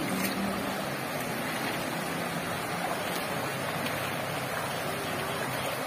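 Steady rush of a shallow stream, with water spilling down a small cascade.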